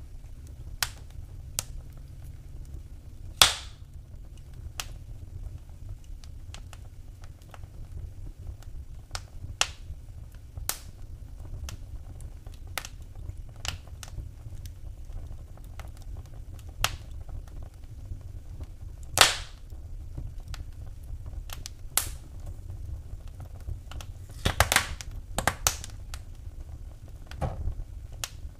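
Wood fire burning in a fireplace, crackling with irregular sharp pops and snaps over a steady low rumble of the flames. A few pops stand out as much louder, one a few seconds in, one a little past the middle, and a quick cluster near the end.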